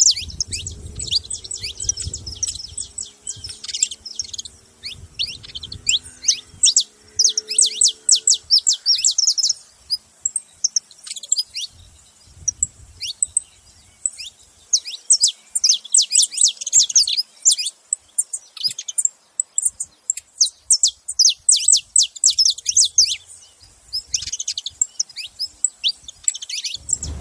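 Saffron finch (canário-da-terra) calling and singing: rapid runs of high, quick downward-slurred chirps in repeated bursts, with a short lull about a third of the way in.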